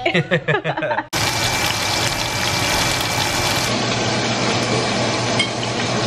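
A toddler's voice for about a second, then an abrupt change to a steady rushing noise with a low hum underneath.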